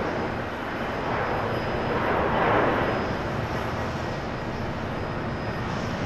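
Twin jet engines of a Japan Airlines Boeing 767-300ER at takeoff thrust as the airliner rolls down the runway. The steady jet roar swells to its loudest about two and a half seconds in as the plane passes, then eases slightly.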